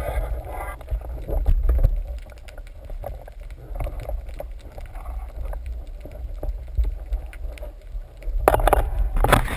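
Muffled underwater rumble and water movement, heard through a GoPro's waterproof housing, with scattered small clicks and knocks. A louder rushing swell of noise comes near the end.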